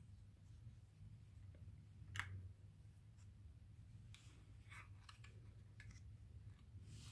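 Faint clicking and scraping of a plastic snap rat trap being handled, its parts knocking together, with one sharper click about two seconds in.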